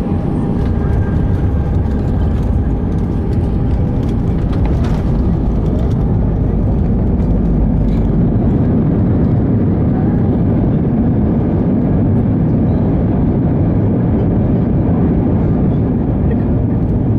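Airbus A319 cabin noise with the jet engines and airflow making a loud, steady low rumble, with a few rattles and knocks in the first several seconds.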